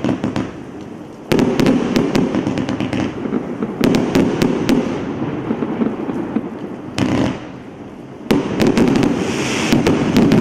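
Hallmark Relentless compound firework cake firing: a rapid run of sharp shots and bursts over continuous crackling. It dips briefly about a second in and again about three-quarters through, then fires densely again.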